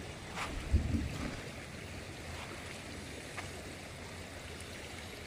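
Shallow stream water flowing steadily, with a brief low thump about a second in.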